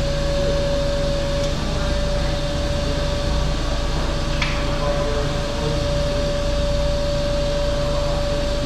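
Hyster forklift's hydraulic pump motor running with a steady whine as the mast lifts the forks, over a low hum. The whine cuts off at the very end.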